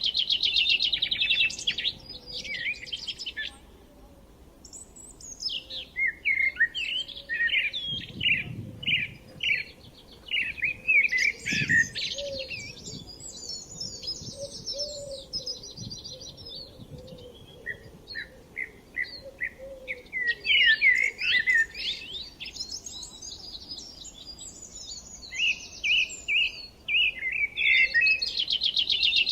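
Songbirds singing: quick high chirps and warbled phrases one after another, with short lulls about four seconds in and again about two-thirds of the way through.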